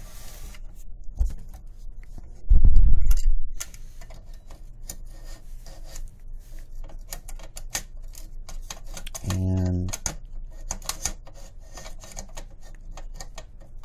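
Light clicks and taps of an aluminium rifle handguard knocking against the barrel and gas block as it is slid on by hand. There is a loud dull thump about two and a half seconds in, and a brief hummed voice sound near ten seconds.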